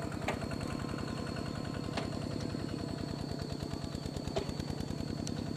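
A small engine idling steadily with a fast, even beat, with a few light clicks over it.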